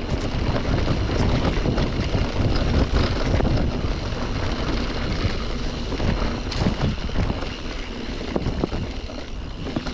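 Mountain bike riding fast over a rough trail: steady wind rush on the microphone, with the tyres and frame rattling and clattering over the ground.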